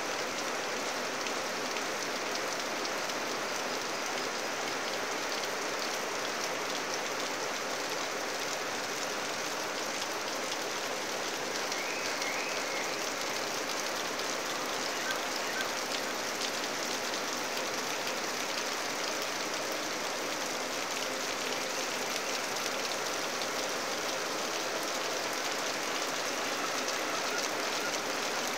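Steady rain falling on leafy forest undergrowth and a floor of dry bamboo leaves: a dense, even patter of drops that neither builds nor eases.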